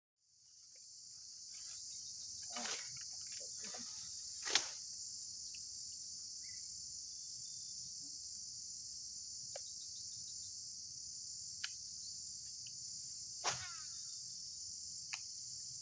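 A steady high-pitched insect chorus, like crickets, fading in at the start and holding steady. A few sharp clicks or knocks sound over it, the loudest about four and a half seconds in and near the end.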